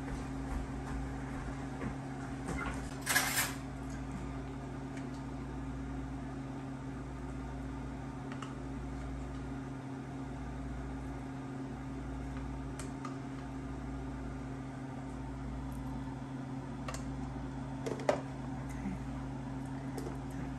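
Steady low hum of a running kitchen appliance or fan, with a brief burst of hissing noise about three seconds in and a few light clicks and knocks near the end.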